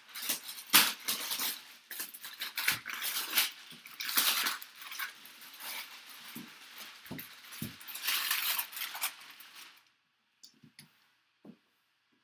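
Plastic shrink wrap crinkling and crackling in quick, irregular bursts as it is pulled and crumpled off a cardboard box. It stops about ten seconds in, leaving a few faint taps.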